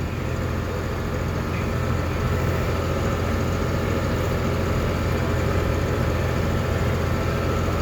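John Deere tractor engine running steadily while pulling a belt-type round baler through a hayfield, a constant drone heard from inside the tractor cab.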